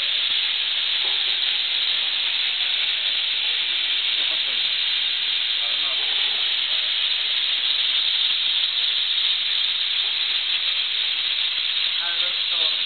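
A loud, steady hiss, with faint voices under it now and then.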